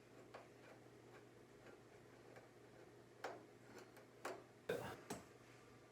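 Faint, irregular ticks and clicks of a screwdriver driving the screws that hold a chrome headlight housing, with a few sharper clicks in the second half.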